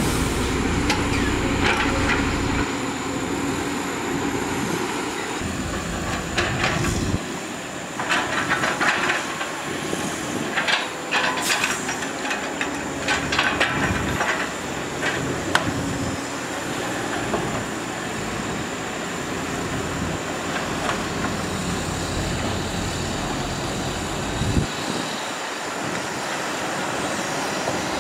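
Heavy diesel site machinery (dump truck and excavator) running with a low rumble. Around the middle come several seconds of knocks and clatter as rocks and soil tumble out of a tipping dump-truck bed.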